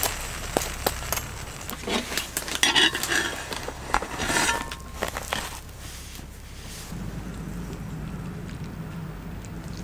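Cutlery and dishes clinking in a run of light, sharp knocks as food is served and eaten. From about seven seconds in the clinks stop and a steady hiss of rain takes over.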